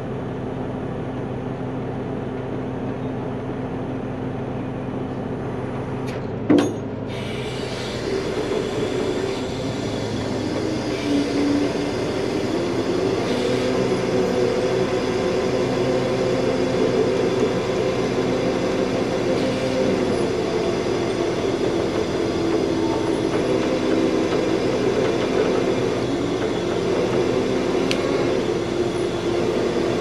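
Heavy wrecker's diesel engine running steadily, with a brief sharp knock about six seconds in. From about eight seconds the revs rise and hold higher as the boom winch takes the strain on a backhoe stuck in lakeside mud.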